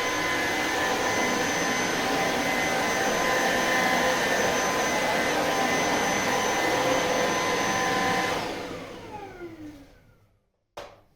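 Electrolux Pure F9 cordless stick vacuum running steadily, a dense rushing noise with several held whine tones. About eight seconds in it is switched off and the motor winds down, its whine falling in pitch as it fades over about two seconds, followed by a single sharp click near the end.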